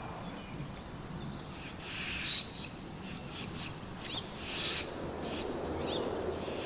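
Barn owl giving two harsh, hissing screeches about two seconds apart, with short twittering chirps of barn swallows between them.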